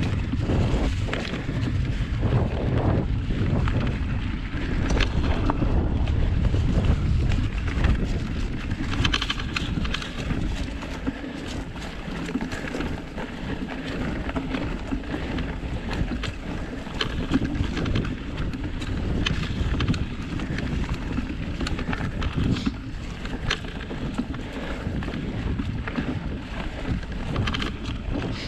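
Mountain bike (a Surly Krampus 29+) riding rocky single track: wind buffeting the microphone over the rumble of the tyres, with frequent clicks and rattles from the bike. The low rumble is heaviest in the first eight seconds or so.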